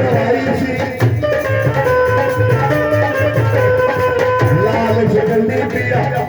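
Instrumental interlude of a live Punjabi devotional folk song to a pir: a hand-drum rhythm, such as tabla, under a melody instrument holding long steady notes.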